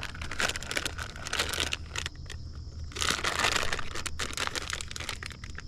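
Plastic bag of soft-plastic fluke baits crinkling and rustling as it is handled, with a denser, louder stretch of crinkling about three seconds in.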